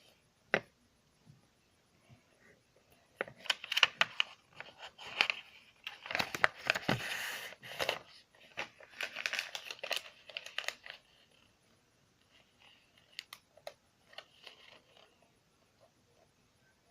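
Slime being stirred and scraped from the sides of a bowl: bursts of sticky crackling and clicking, busiest from a few seconds in until about two-thirds through, then a few light taps.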